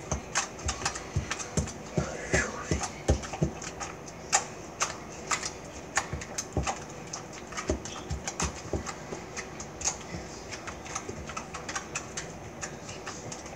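Fingers of two people poking and pressing sticky slime on a kitchen countertop: an irregular run of sticky clicks and soft taps, a few a second.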